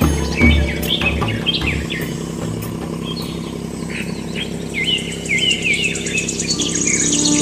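Many small birds chirping in quick, short calls, busiest around the middle of the stretch, over a steady low hum.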